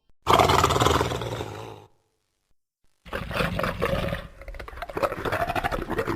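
Hyaenodon creature sound effect: a harsh roar of about a second and a half, then, after a second of silence, a rapid rattling growl that goes on.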